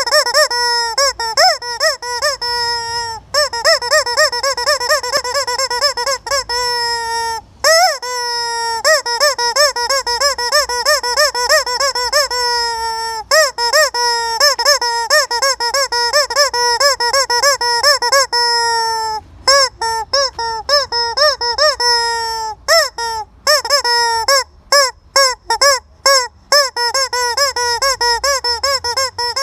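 A noise-making chicken giving rapid squeaky, honking calls, several a second and almost without pause, with short breaks now and then and the calls more spaced out near the end.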